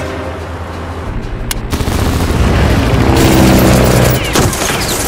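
Film dogfight sound effects: rapid machine-gun fire and heavy booms, building up about two seconds in and loudest near the end.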